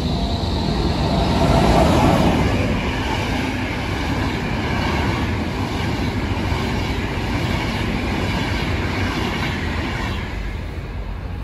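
Intercity passenger train passing close along the near track: a steady rumble of coaches with a regular clatter of wheels over the rail joints, loudest about two seconds in and easing a little near the end.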